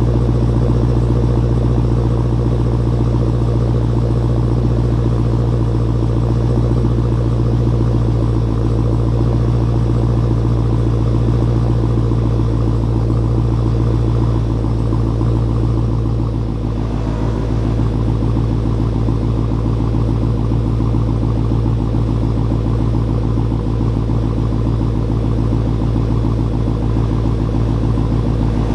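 2016 Dodge Challenger SRT Hellcat's supercharged 6.2-litre HEMI V8 idling steadily through its stock exhaust, warming up after a cold start. The idle steps down slightly a little past halfway.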